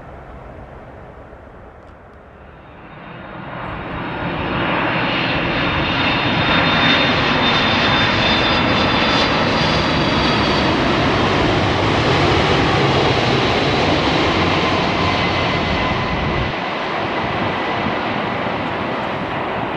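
Large jet airliner's engines swelling over a couple of seconds to a loud, steady roar with a high whine on top, as the aircraft passes close by.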